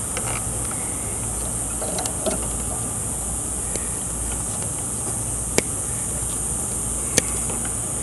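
Wire strippers snipping insulation off the ends of a refrigerator's compressor and hard-start-kit leads: a few faint ticks, then two sharp clicks about a second and a half apart near the end, over a steady high hiss.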